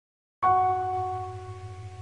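A bell-like chime struck once, about half a second in, its tones ringing and slowly fading over a low pulsing hum: the opening of an intro soundtrack.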